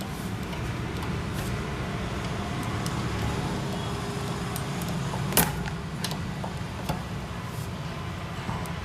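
Steady low hum, with a sharp click about five and a half seconds in and a fainter click about a second and a half later, as a multimeter ground lead is clipped on.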